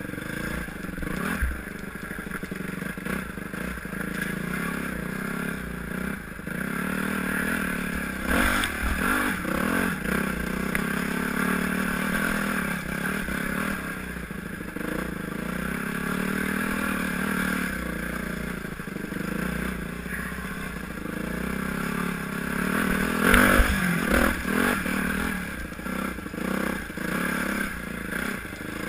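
Yamaha YZ250F four-stroke single-cylinder dirt bike engine running under a rider on a trail, revving up and easing off with the throttle, its loudest surge a little past two-thirds of the way through. Short knocks from the bike over rough ground come through now and then.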